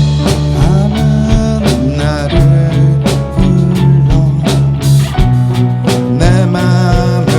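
Rock band playing live in a rehearsal room: drum kit, bass guitar holding long low notes, and electric guitar with bending notes, with no vocals. Recorded on a phone, the mix sounds full and loud.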